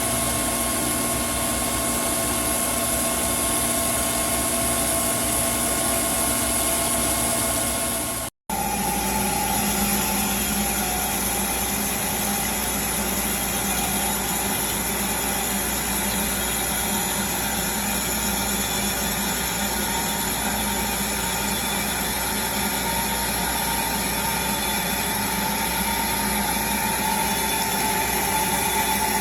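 Grinding machine running steadily as it grinds a live-centre shaft: a constant machine noise with several steady tones. The sound cuts out for a moment about eight seconds in, then resumes with a slightly changed set of tones.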